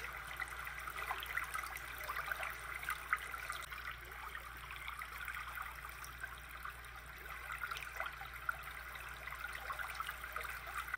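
Water trickling and babbling steadily, like a small stream, with many small splashy flecks.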